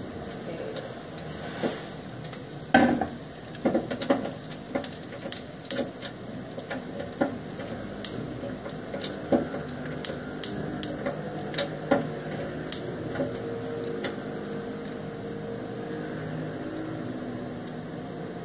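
Utensil stirring and scraping food in a non-stick frying pan, with irregular clicks and clinks of metal on the pan over a low frying sizzle.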